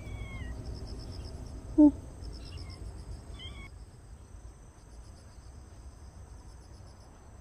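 Insects trilling steadily in a high, pulsing chorus, with a few short bird chirps in the first four seconds and one brief voice sound about two seconds in.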